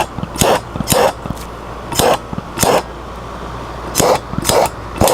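Handheld torch fired in short blasts of flame, about seven quick whooshes a half-second to a second apart, heating heat-shrink tubing over a wire splice.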